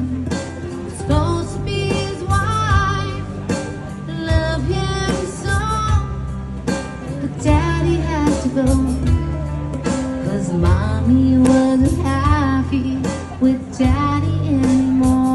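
A recorded song: a woman singing a melody over guitar and a steady bass line.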